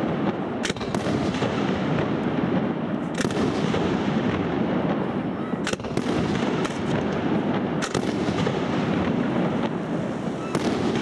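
Fireworks display: aerial shells bursting in a series of sharp bangs, irregularly spaced one to two and a half seconds apart, over a steady rushing background noise.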